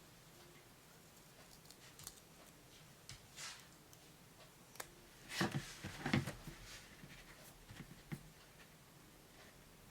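Handling noise of a Mego Flash action figure as its loose chest emblem is pressed back onto the costume: scattered light clicks and soft rustles, with a short cluster of louder taps around the middle.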